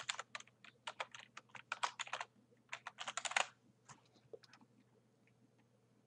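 Typing on a computer keyboard: a quick run of keystrokes for about three and a half seconds, followed by a few scattered clicks.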